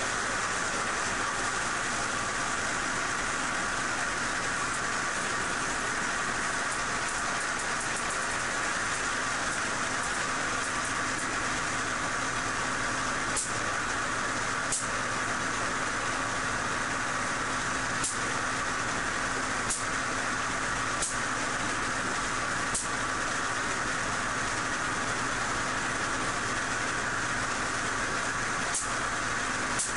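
Homemade Van de Graaff generator running, its motor-driven belt giving a steady whir, with sharp spark snaps at irregular intervals, more often in the second half.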